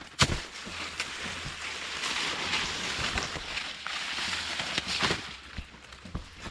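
Rustling and crackling of maize plants' leaves and husks being handled, with a couple of sharp snaps in the first second.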